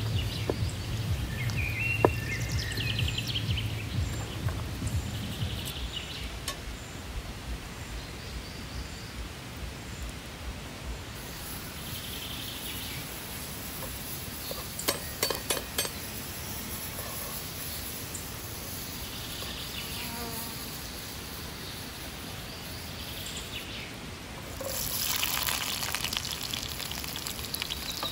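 A fly buzzing, then butter sizzling in a hot cast-iron pan over a wood fire, with a few clicks of a spatula against the pan. The sizzle gets louder near the end.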